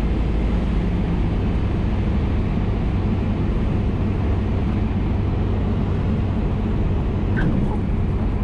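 Steady engine drone and airflow heard inside the cockpit of a Van's RV-12 light sport airplane, its Rotax engine and propeller running during the landing flare and touchdown. A faint short squeak comes about seven and a half seconds in.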